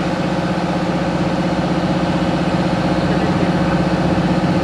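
Fire truck's engine running steadily, an even low drone with no change in pitch.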